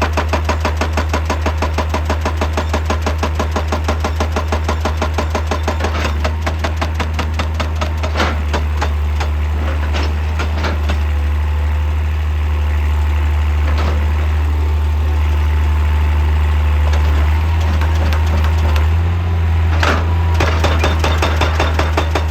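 Excavator-mounted hydraulic rock breaker hammering in rapid, even blows over the deep, steady running of the excavator's diesel engine. The hammering dies away about a third of the way in, leaving the engine running with a few single knocks, and starts up again near the end.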